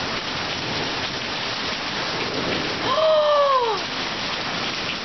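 Heavy rain falling steadily outside. About three seconds in there is a short, high vocal sound that falls in pitch.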